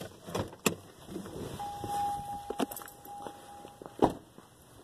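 A person getting out of a Chevrolet pickup's cab: rustling, handling noise and clicks, with a steady single-pitched tone for about two seconds starting about a second and a half in. About four seconds in, the tone stops and the truck door shuts with a sharp bang.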